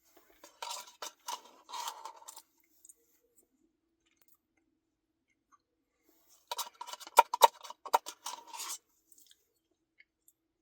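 Close-miked eating of a Reese's cookie dough Blizzard: two bursts of crackly clicking and chewing sounds, each about two seconds long, the second one louder.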